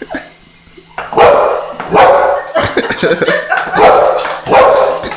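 Dog barking repeatedly, about one loud bark a second from about a second in, agitated at a remote-control helicopter.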